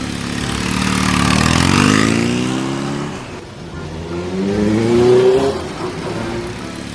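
An engine revving up twice, its pitch rising each time.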